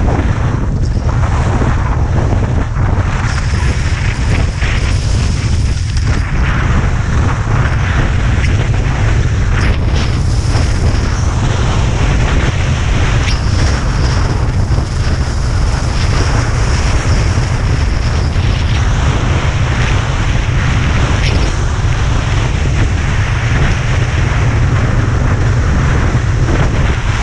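Wind buffeting a GoPro action camera's microphone during a fast ski run, a steady low rumble, with the hiss and scrape of skis sliding over groomed snow.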